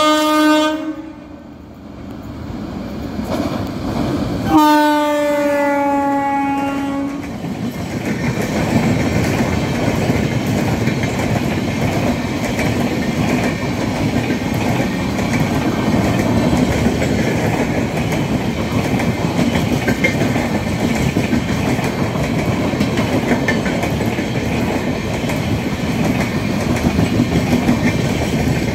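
Indian Railways express train passing through a station. A locomotive horn blast ends about a second in, and a second blast of about three seconds starts about four and a half seconds in, dropping in pitch as the locomotive goes by. The steady rumble and clickety-clack of the passenger coaches rolling past follows.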